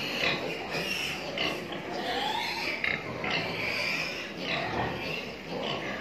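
Piglets squealing, many short high-pitched calls overlapping.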